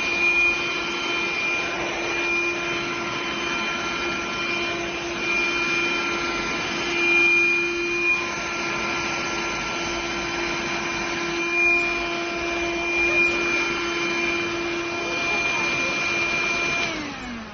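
ELUXGO EC19C cordless vacuum cleaner running steadily, its motor giving a constant whine over a rush of air. Near the end it is switched off and the whine falls in pitch as the motor spins down.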